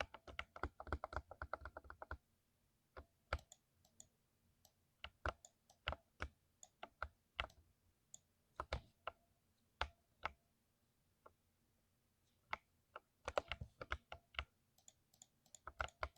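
Mechanical keyboard with lubed switches being typed on: a quick run of keystrokes for about two seconds, then scattered single key presses, and another quick run about thirteen seconds in.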